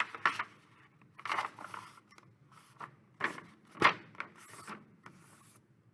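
A sheet of paper being handled and folded in half: a series of brief rustles and scrapes, the loudest about two-thirds of the way through.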